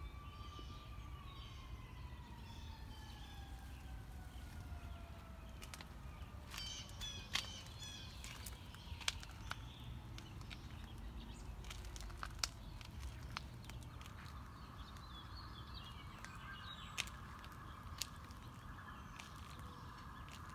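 Faint outdoor ambience: birds chirping over a low rumble, with a distant siren wailing and falling away over the first several seconds. Scattered sharp clicks follow midway, and a steady hum sets in about two-thirds of the way through.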